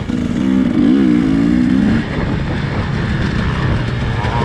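Racing engine running under load, its pitch rising and falling about a second in, then running on a little quieter and rougher.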